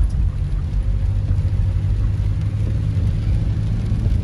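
A car driving steadily, heard from inside the cabin: a continuous low rumble of engine and tyres on a wet road.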